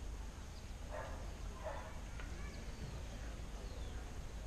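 Faint outdoor ambience: scattered bird chirps over a low steady rumble, with two short indistinct calls about a second in.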